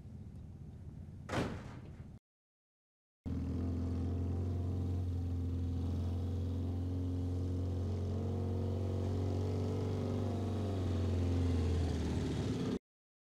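A single sharp knock or slam about a second in, then, after a cut, a vehicle engine running steadily for about nine seconds, a deep hum whose pitch wavers slightly, cutting off suddenly near the end.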